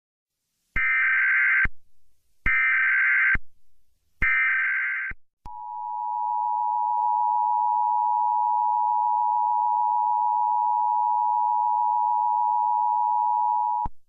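Emergency Alert System tones announcing a Required Weekly Test: three bursts of the digital SAME header, each about a second long, then the steady two-tone attention signal, held for about eight seconds before it cuts off.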